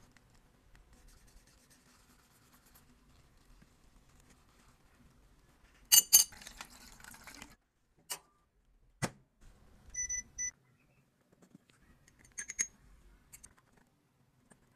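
Small handling sounds of makeup tools: faint scratching, then a loud click with a brief rustle about six seconds in, two sharp clicks, and two short electronic beeps half a second apart.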